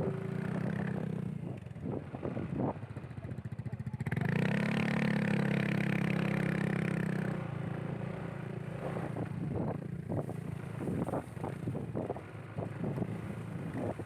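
Motorcycle engine running under throttle on a rough off-road trail. The note grows louder and steadier for about three seconds starting about four seconds in. Scattered knocks and clatter follow.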